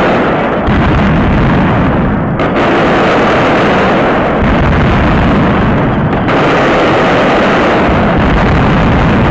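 Daytime firecracker barrage of a mascletà: bangs so rapid and dense that they merge into one continuous, very loud din, with no pause between them.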